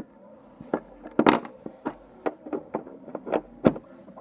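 Hands working a yellow plastic Kinder Surprise capsule and the crinkly wrapper of the toy inside: a run of sharp plastic clicks and crackles, the loudest about a second in.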